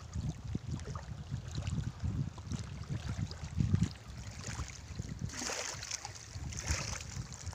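River water lapping and washing, with wind buffeting the microphone in an uneven low rumble. From about five seconds in, a brighter hiss of water rises for a second or two.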